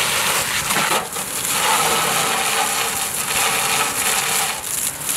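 Fire hose spraying a jet of water onto a burning tractor and hay-making machine: a steady rushing hiss with crackling.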